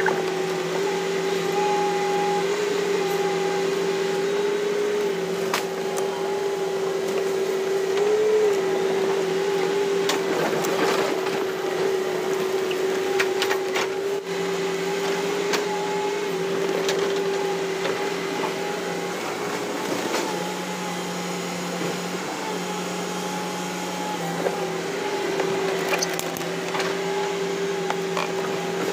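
Hitachi Zaxis 200-5G excavator's diesel engine and hydraulics running steadily with a constant whine as the bucket works logs. Scattered cracks and snaps of wood come through it, a cluster about ten to fourteen seconds in and another near the end.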